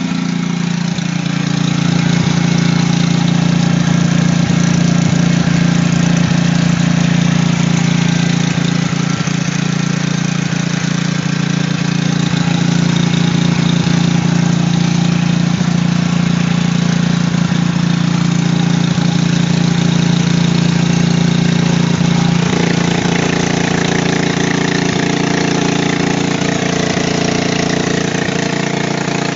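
Chinese-made Honda-type portable generator engine running steadily with a constant low hum; its tone shifts slightly about 22 seconds in.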